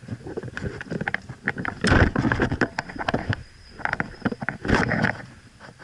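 Footsteps and rattling kit close to a body-worn camera: irregular clicks and knocks, with a louder rustling thump about two seconds in and another near the end.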